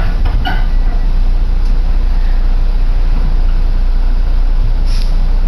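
Interior running noise of an electric passenger train, a steady low rumble as it rolls slowly past a station. A short hiss sounds near the end.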